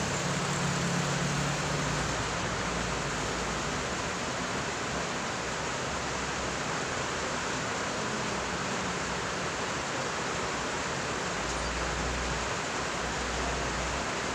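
A steady, even hiss of background noise that does not change.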